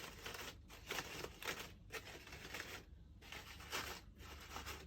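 Crepe-paper petals rustling and crinkling as they are handled and fluffed by hand, in faint, irregular short strokes.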